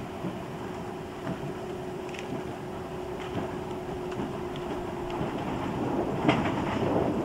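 Ride inside a British Rail slam-door electric multiple unit (Class 305, 307 or 308) on the move: a steady running rumble with a hum that stops about five seconds in. The train then grows louder, with a few sharp clicks of the wheels over rail joints near the end.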